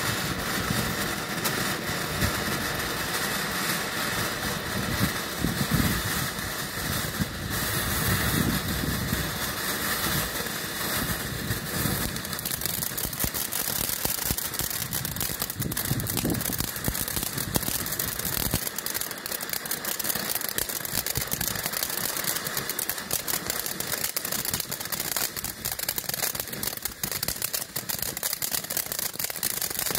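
Ground firework fountain burning: a steady rushing hiss of sparks, with crackling that grows denser from about halfway.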